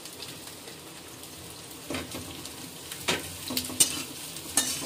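Vegetables sizzling in an iron kadhai over a high gas flame. From about two seconds in, a steel spatula scrapes and clanks against the pan several times as the shredded cabbage and other vegetables are stir-fried.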